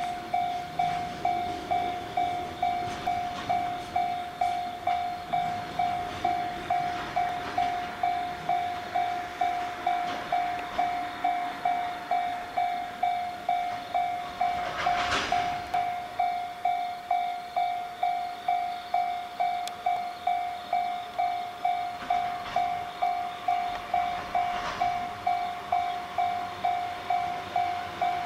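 Railway level-crossing warning bell ringing steadily at about two strokes a second as a freight train moves through, with the faint sound of the passing wagons underneath. A short burst of noise cuts in about halfway through.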